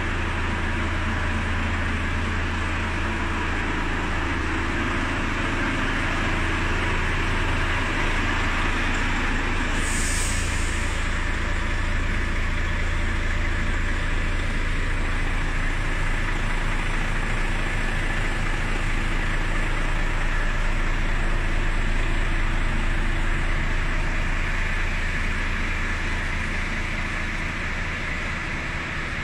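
Volvo FH16 540's 16-litre straight-six diesel engine idling steadily, a deep even rumble, with a short hiss about ten seconds in.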